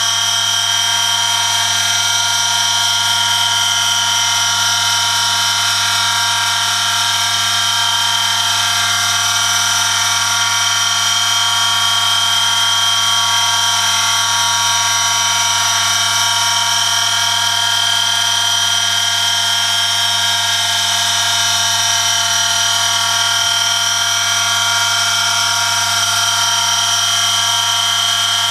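Electric motor of a homemade oil friction tester running steadily, its spinning steel shaft rubbing metal on metal against a test sample pressed on by a 1 kg weighted lever, under Castrol Edge 5W-40 engine oil. A steady low hum with a steady high-pitched whine over it, unchanging throughout.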